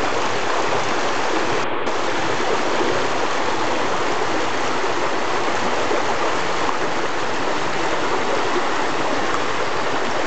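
Shallow river running fast over flat rock in small rapids: a steady rush of water.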